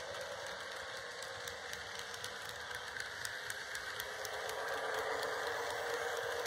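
HO-scale model freight cars rolling past on metal track: a steady rattling of small wheels on the rails, with quick sharp clicks as the wheels cross rail joints.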